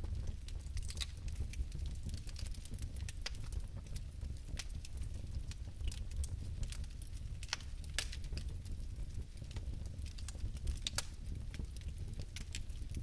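Fireplace fire burning, a steady low rumble of flame with irregular sharp crackles and pops.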